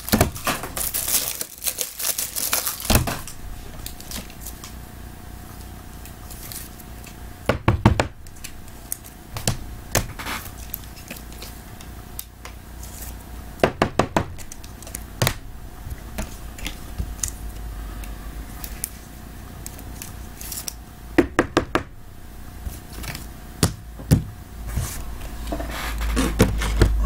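Rigid plastic card toploaders being handled and stacked on a table: clusters of sharp clicks and taps every few seconds, with some plastic sleeve crinkling. A low rumble rises near the end.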